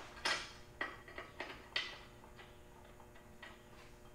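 Deck-lift mechanism of a Ferris Z3X stand-on zero-turn mower clicking as the deck is lowered: a quick run of light clicks in the first two seconds, then a few fainter ticks.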